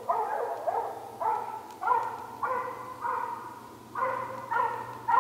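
Mountain cur barking treed, a steady run of chop barks about one every half second with a brief pause a little past the middle: the dog has a raccoon up a tree and sounds confident of it.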